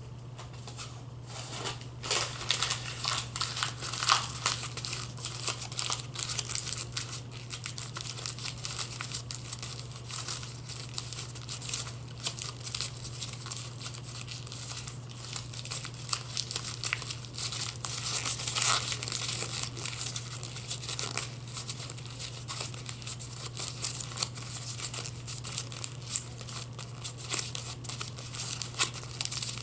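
Plastic wrapping crinkled and scrunched by hand close to the microphone: a dense, irregular run of crackles that starts about two seconds in and keeps going.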